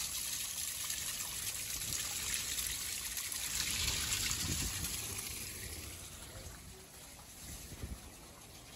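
Small waterfall running, a steady rush and splash of falling water that grows quieter about six seconds in.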